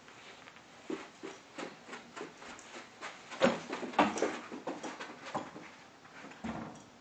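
A dog's paws scampering and pouncing on carpet: an irregular run of soft thuds and patters, loudest about halfway through.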